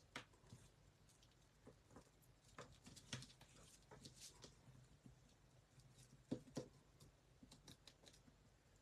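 Near silence with faint, scattered rustles and small clicks of ribbon and cardstock being handled as a bow is tied.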